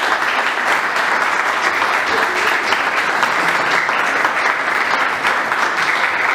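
Small audience applauding in a room, with steady, dense hand clapping.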